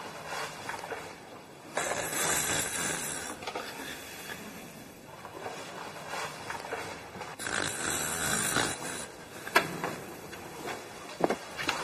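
A person snoring in sleep: two long, breathy snores about five and a half seconds apart, followed by a couple of sharp clicks near the end.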